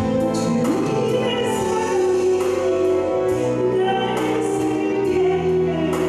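A woman singing a Korean gospel praise song into a handheld microphone, holding long gliding notes over an instrumental accompaniment with regular cymbal hits.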